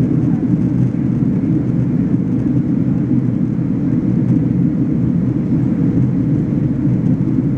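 Steady low rumble of engine and airflow noise inside the cabin of a Boeing 767-300ER during its descent on approach.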